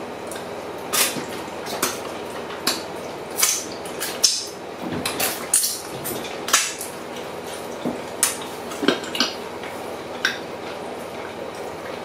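Wet eating sounds made with the mouth, exaggerated on purpose to annoy: lip smacking and finger sucking while eating with the hands, coming as about fifteen short, sharp smacks at irregular intervals.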